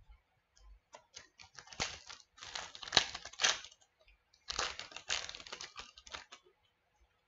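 A trading-card pack's wrapper crinkling and tearing as it is opened by hand, in two spells of rustling, the second starting about halfway through.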